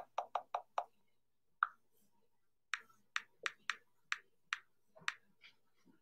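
Clicks of fingers typing a password on an iPad Pro's on-screen keyboard: a quick run of about five keystrokes, a single one, then a slower string of about eight more.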